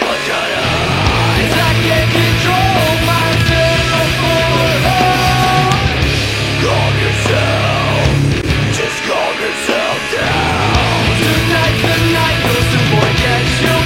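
Loud heavy rock music with electric guitar over a steady bass line; the low end drops out briefly about nine seconds in.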